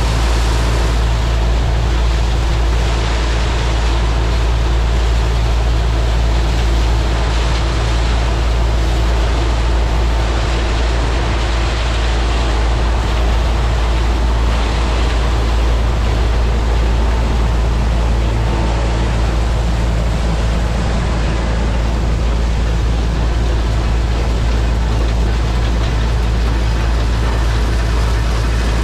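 New Holland TR99 combine harvesting soybeans: its six-cylinder turbo diesel engine and threshing machinery run under load in a loud, steady drone.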